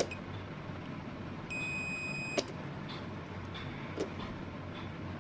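Digital multimeter's continuity buzzer giving one steady high beep of about a second as the probes bridge a low-resistance point on the circuit board. The probe tips click against the board a few times over a low steady hum.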